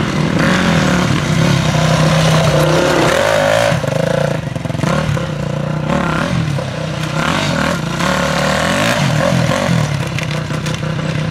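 Dirt bike engine revving hard under throttle, its pitch rising and falling with the throttle and gear changes, with a brief drop about four seconds in.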